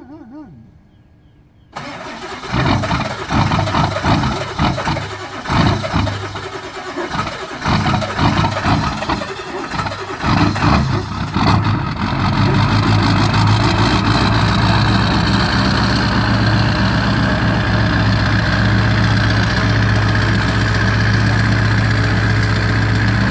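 Ford 7.3 L Power Stroke V8 turbo-diesel cold-started at about 8°F. The starter cranks about two seconds in and the engine catches and runs ragged and uneven for about ten seconds, then settles into a steady idle. It is a hard cold start, and the owner says the starter is starting to go out.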